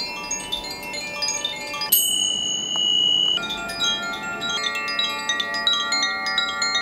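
Chimes ringing: overlapping clear notes that start one after another, a single bright high bell-like strike about two seconds in that stops abruptly, then a hand-held bamboo-tube chime swung so its tuned rods tinkle in a dense cluster of notes.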